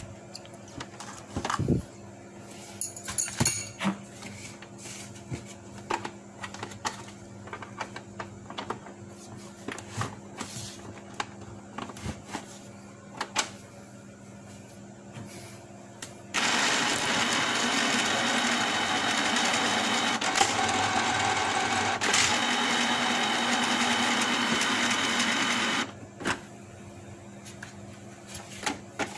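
Canon PIXMA iP2870S inkjet printer's mechanism running for about nine seconds as a steady mechanical whirr, starting about sixteen seconds in and stopping suddenly. It is a test run after a jam was cleared from the paper feed. Before it come scattered small clicks and taps of handling.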